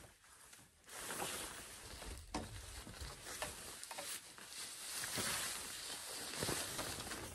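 Rustling and crinkling of a flysheet tarp being handled and spread out, with scattered small knocks and clicks; it grows louder about a second in.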